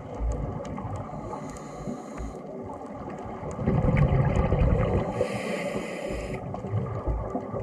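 Scuba diver breathing through a regulator underwater, heard through the camera housing. There are two hissing inhalations about four seconds apart, with a low bubbling rumble of exhaled air between them.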